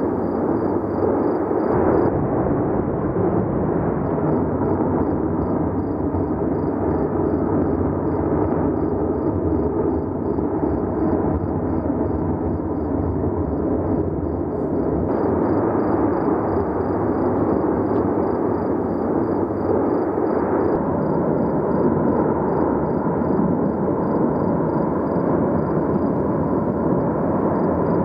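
Cumbre Vieja volcano erupting: a loud, continuous, steady rumble without separate blasts.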